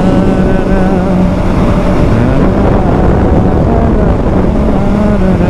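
Bajaj Dominar's single-cylinder engine running at a steady cruising speed, with heavy wind rush over the microphone.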